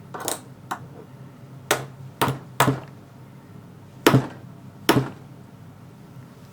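Thumb cuffs slammed against a table about seven times at an uneven pace, a sharp knock each time, the two hardest near the middle: the blows ratchet the cuffs tighter on the thumbs.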